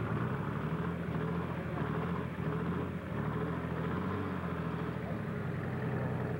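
Pulling tractor's diesel engine running under heavy load in a steady drone as it pulls down the track.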